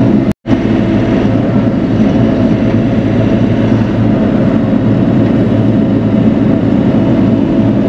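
Bobcat E42 mini excavator's diesel engine running steadily under work. There is a brief dropout in the sound just under half a second in.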